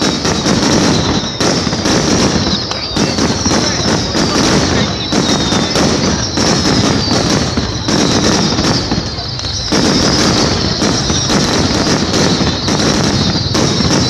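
Aerial fireworks going off overhead in a rapid, unbroken run of bangs and crackles, with high whistles sliding down in pitch again and again.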